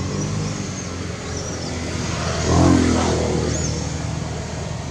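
A motor vehicle passing, its engine hum swelling to its loudest about two and a half seconds in and then fading. Faint bird chirps sound above it.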